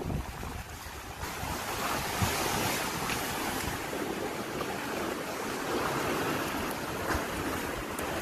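Wind buffeting the microphone over the wash of sea waves, the wind noise growing louder about a second in and then holding steady.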